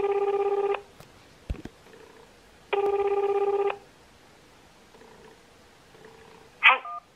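Telephone ringback tone heard on a mobile phone while the call is ringing: two one-second warbling rings, about three seconds apart. Near the end, the line picks up with a short burst of sound.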